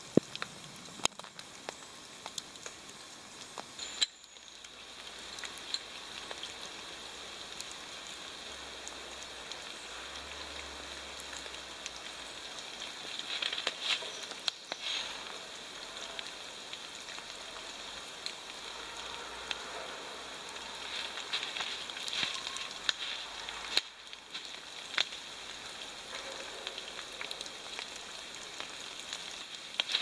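Light pattering and crackling of wet snow and drips falling on dry leaves, a steady hiss scattered with small ticks. Now and then it is louder, with the rustle of cord and tarp being handled.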